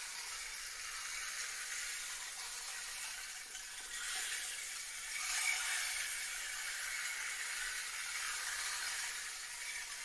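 A 25 cm wooden 'stream and water' percussion shaker being slowly tilted by hand, its filling sliding across the inside to make a steady rushing hiss like running water. The hiss swells a little about halfway through.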